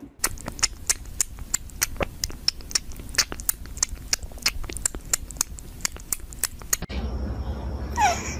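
A cat chewing close to the microphone: crisp, irregular clicks, several a second. Near the end, after a sudden change to a louder, noisier background, a startled cat gives one short falling cry.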